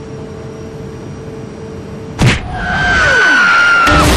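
Advertising sound effects. A low steady hum is followed about two seconds in by a sudden hit, then a held high tone with a second tone falling steeply in pitch, and another hit near the end.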